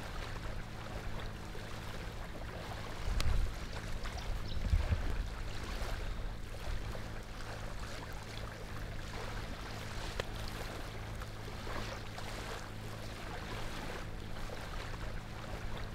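Shoreline ambience: a steady wash of water at the edge of the sand, with a constant low hum underneath and two brief low rumbles of wind on the microphone about three and five seconds in.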